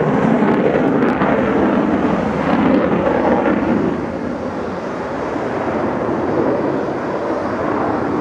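Lockheed Martin F-35 fighter flying a display overhead: its single Pratt & Whitney F135 turbofan makes a loud, steady rushing jet noise that eases a little about halfway through.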